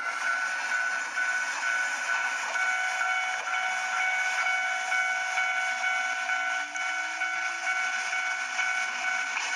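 Japanese railroad crossing signal ringing its steady warning tones over a continuous rushing noise, typical of a train going through the crossing.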